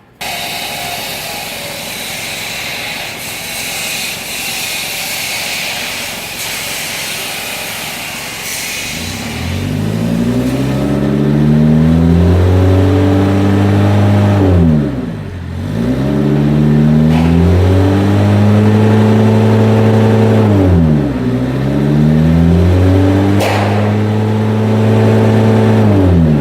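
Mitsubishi L300 diesel engine revved repeatedly in a smoke test after a fuel-saver device is fitted. After about nine seconds of steady rushing noise, the engine speed climbs and is held high for several seconds, then drops back and climbs again, three times over.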